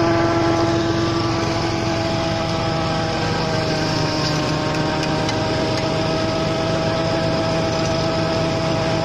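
Small gasoline engine of a land dredge running steadily at a constant high speed. Its note shifts slightly about three and a half seconds in, while its suction hose is worked into the gravel.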